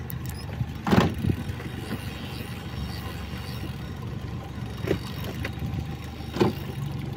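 Boat motor running steadily at low speed, with a few short knocks, the loudest about a second in.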